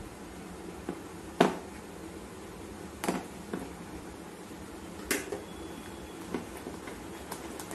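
A silicone spatula knocking against a plastic bowl while folding whipped cream: a few sharp clicks at uneven intervals, the loudest about a second and a half in, over a steady low background hum.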